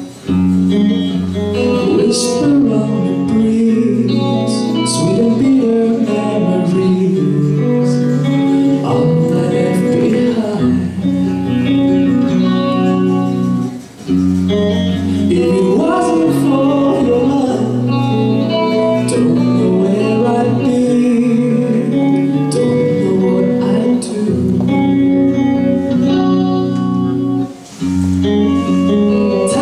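Hard-rock band playing live at full volume: electric guitar, bass and drums with a singer. The music stops dead briefly three times, just after the start, about halfway through and near the end, then comes straight back in.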